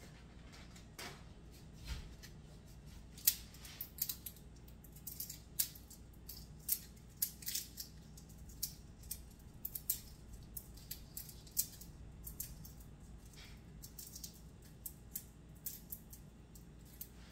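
Dried bay leaves being crumbled between the fingers: an irregular run of crisp, dry crackles, a few a second, tapering off near the end.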